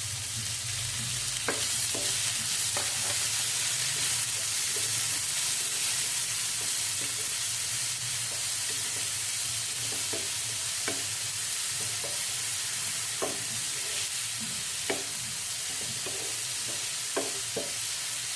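Chopped tomato and onion frying in hot oil on a tawa: a steady sizzle, with scattered light taps and scrapes of a spatula stirring the pan.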